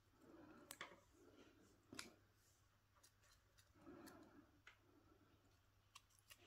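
Near silence broken by faint, scattered clicks and soft rustling of hands handling a wire flower stem and wrapping it with floral tape.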